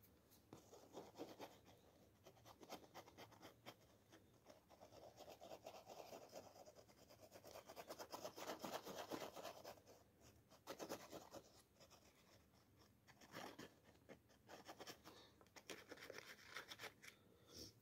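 Faint scratching and rubbing of a glue tube's nozzle spreading yellow shoe glue over a heel-counter piece, in short irregular strokes.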